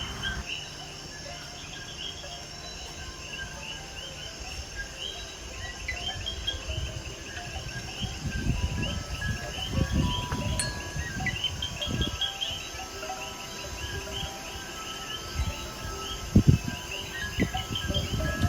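Outdoor night ambience: a steady chorus of chirping insects and coquí frogs, with a few faint wind-chime tones. Gusts of breeze rumble on the microphone around the middle and again near the end.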